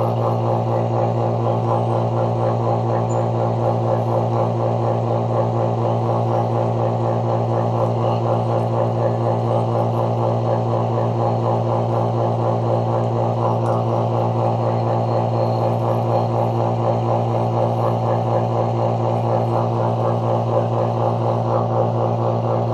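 Vacuum pump running steadily with a constant low hum, evacuating a refrigerator's sealed refrigeration system.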